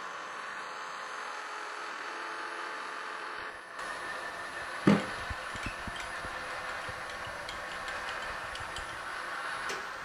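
Metal lathe running through a slow facing cut on a large faceplate pallet, a steady machining hum and hiss. Just before five seconds in there is a single loud knock, followed by scattered light clicks.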